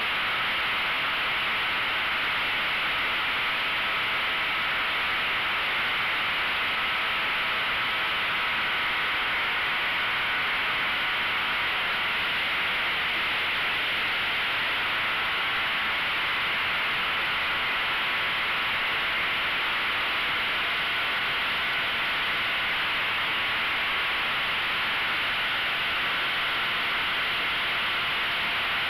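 RC model airplane's motor and propeller running in flight, heard from the onboard camera as a steady hiss of wind and prop wash with a whining drone over it; the drone's pitch shifts a little after halfway.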